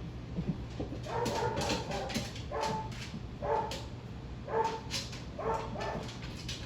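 A dog barking and whining in a run of about eight short calls, over a steady low hum.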